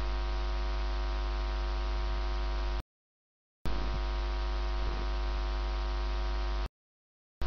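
Steady electrical mains hum and buzz on the recording, a low drone with many overtones and some hiss. It cuts to dead silence twice: about three seconds in, and again near the end.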